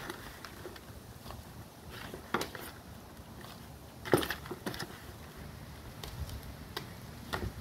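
Small hand trowel scooping and scraping loose potting soil in a plastic tub and tipping it into a pot: scattered short crunching scrapes and knocks, the loudest about four seconds in.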